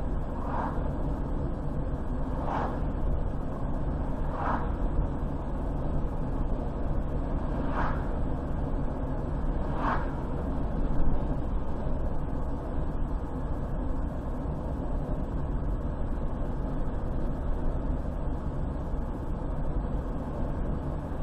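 Car driving along a highway: steady low road and engine noise, with five short, higher-pitched sounds spaced a couple of seconds apart in the first half.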